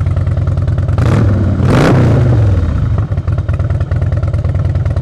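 A 2006 Harley-Davidson Night Train's fuel-injected Twin Cam 88 V-twin idles through aftermarket exhaust pipes. About a second in it is revved once, rising and falling back to idle within about a second and a half.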